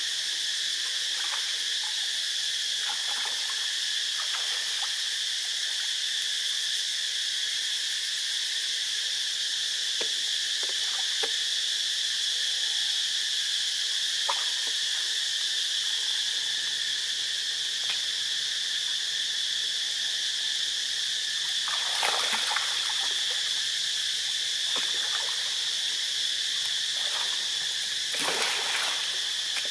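Steady, high-pitched drone of a daytime insect chorus. A few brief splashes come from a monkey moving in the shallow water, the loudest about three-quarters of the way through and again near the end.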